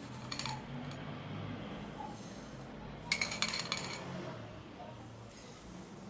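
A spoon clinking against glass as coarse rock salt is spooned from a glass bowl into glass jars of cut radishes, with the salt crystals scattering. There are two runs of sharp clinks: a short one just after the start and a longer, louder one about three seconds in.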